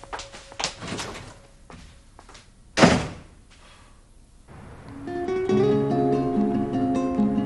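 A few light knocks, then one loud thud about three seconds in. Acoustic guitar music fades in just past halfway and carries on with plucked notes.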